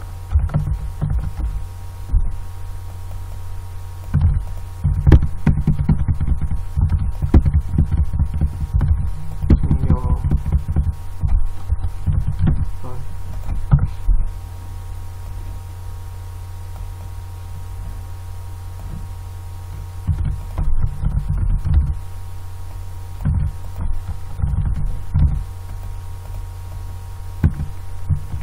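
Computer keyboard typing, picked up by the microphone as bursts of dull thumps over a steady low electrical hum. The typing stops for several seconds about halfway through, leaving only the hum, then resumes.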